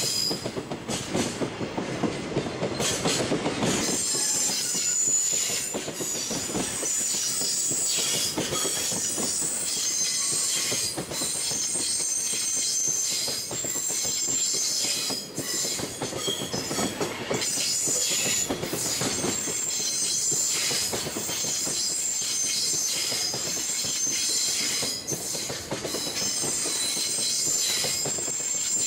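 A freight train of Koki container flat wagons rolls past close by, its steel wheels clacking over the rail joints in irregular knocks. A high-pitched squeal from the wheels carries on over the rumble.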